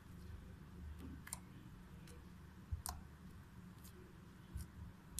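Homemade foam slime squeezed and pressed with fingertips on a wooden table: faint handling noise with a few sharp clicks, the two clearest about a second and a half apart.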